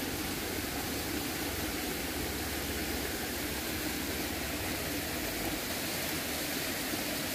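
Steady rushing of a flowing stream's water, an even hiss without breaks.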